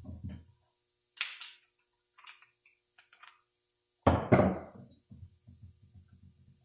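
Metal tools clinking and knocking against a 46RE transmission's parts as a screwdriver forces a stubborn snap ring down into its groove: a dull thump, sharp clicks, a few light ticks, then one loud metallic knock about four seconds in followed by a light rattle.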